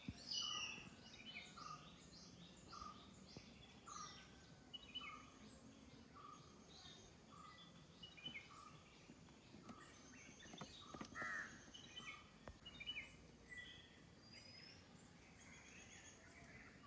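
Faint birdsong: several birds chirping, one repeating a short call about twice a second, over faint outdoor background noise.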